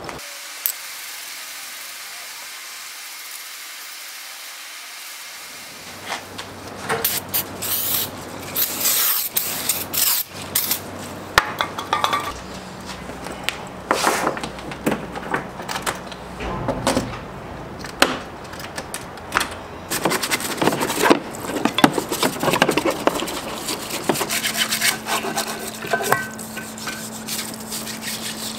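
A steady hiss at first, then from about six seconds in a run of clinks, knocks and scrubbing as rusty metal lathe parts are handled and brushed in a parts-washer tub. A steady low hum from the washer's pump joins about halfway.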